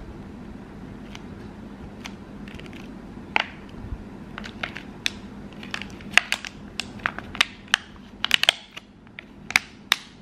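Thin plastic mooncake tray crackling and clicking as a plastic knife cuts the mooncake in it and the tray is squeezed. The sharp clicks come sparsely at first and thicker in the second half, over a steady low hum.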